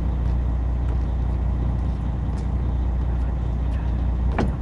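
Boat engine running steadily with a low drone, and one short sharp knock near the end.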